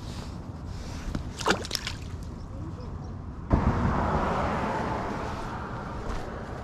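Water splashing: a sudden splash about halfway through, then sloshing that slowly fades. A few sharp clicks come a little earlier.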